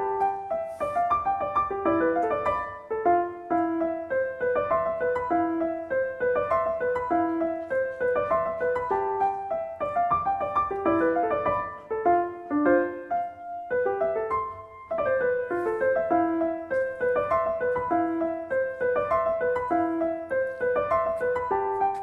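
Background piano music: a flowing run of single notes that breaks off for about a second and a half, a little past halfway, then carries on.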